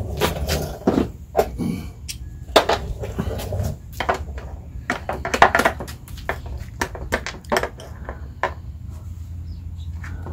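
Irregular clicks and knocks from hand tools and the motorcycle's plastic fairing being handled as loosened bolts are worked on, thinning out toward the end, over a steady low hum.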